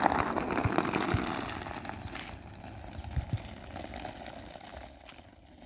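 Small skateboard's wheels rolling over rough asphalt, a steady rumble that fades as the board rolls away, with a few low knocks along the way.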